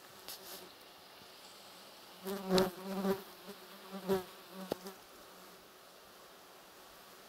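Flies buzzing close past the microphone in several short passes, a wing-buzz that swells and fades between about two and five seconds in.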